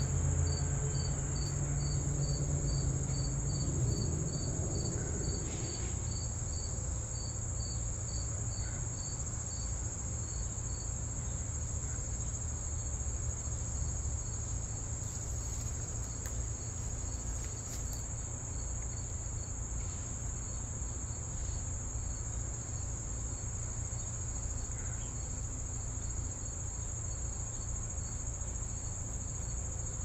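Insects calling: a steady high-pitched trill with a regular chirp about twice a second, the chirp clear for the first ten seconds or so and then fainter, over a low rumble.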